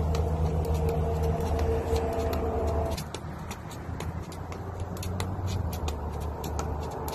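Skipping rope slapping the pavement in light, quick clicks over a steady low motor hum; a higher tone in the hum cuts off about three seconds in.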